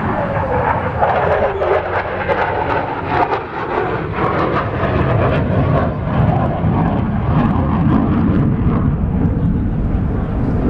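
Airplane flying past loudly, its engine tone falling in pitch over the first couple of seconds as it goes by, then a steady engine sound.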